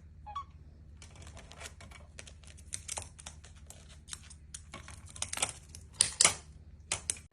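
Rapid, irregular clicks and taps, with a short rising chirp just before they begin, over a steady low hum.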